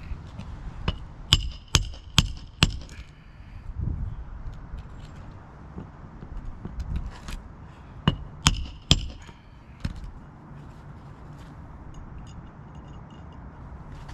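A hammer driving roofing nails through asphalt shingles: two runs of sharp metallic blows, four then three, about 0.4 s apart, each with a short ring.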